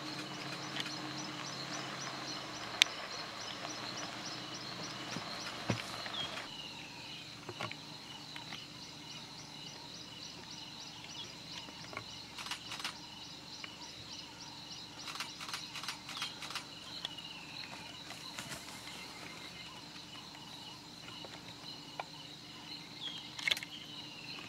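Bush ambience: a steady high insect drone with regular trains of chirping pulses, and a few short descending bird whistles. Scattered sharp clicks and knocks come through, the loudest about three seconds in.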